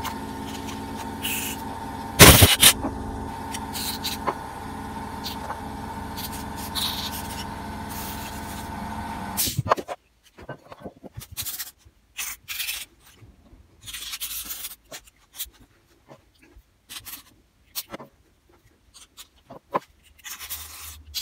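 Fast-forwarded carburettor cleaning. A steady motor hum runs with a short, loud hiss of blowing-through about two seconds in. The hum cuts off about ten seconds in, leaving scattered clicks and rubs of small metal carburettor parts being handled.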